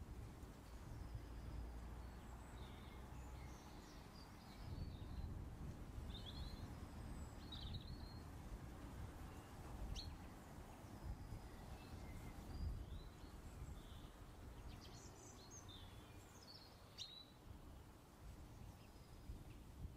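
Faint, steady low background rumble with scattered short, high bird chirps, and two sharp clicks, one about halfway through and one near the end.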